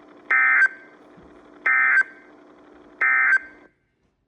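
Three short bursts of EAS (SAME) digital data tones from NOAA Weather Radio, about a second and a half apart, over faint broadcast hiss that cuts off after the third burst: the end-of-message code sent after an alert broadcast.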